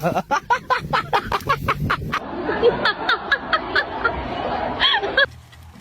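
A chorus of farm animals calling in a rapid run of short calls, several a second, that cuts off suddenly about five seconds in.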